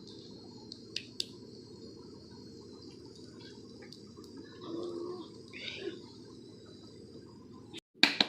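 Faint outdoor ambience of insects chirring steadily, with a short bird chirp about two-thirds of the way through and two sharp clicks about a second in.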